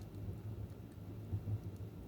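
Wood fire burning in a fireplace: a low, fluttering rumble of flame with a few faint crackles and pops.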